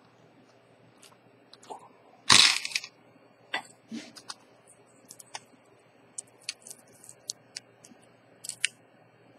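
Sharp clicks and clinks of a Chanel J12 ceramic watch bracelet and its steel folding clasp being handled as a spring bar is fitted. A louder, brief clattering rattle comes a little over two seconds in, and a run of small sharp clicks follows in the second half.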